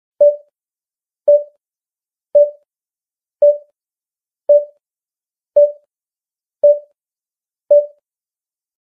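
Eight short electronic beeps on one steady mid pitch, about one a second, each starting sharply and fading quickly, then stopping about a second before the end.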